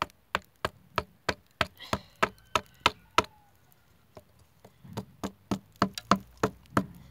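Sharp, evenly spaced knocks on a wooden spear shaft, about three a second, in two runs with a short pause between, as a hole is worked into the stick.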